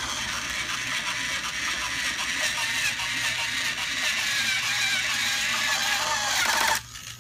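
Battery-powered toy screwdriver running steadily as it drives a screw into a toy bulldozer kit, cutting off suddenly near the end.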